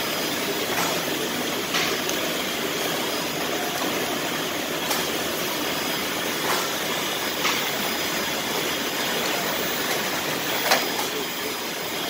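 Steady running noise of an ice cream factory's packaging-line machinery and conveyor belts, with a handful of sharp clicks at irregular intervals.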